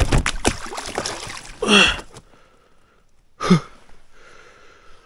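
A quick run of knocks and splashing, then two short, loud gasps or grunts from a man, about a second and a half apart, while a freshly landed pike is handled in a boat.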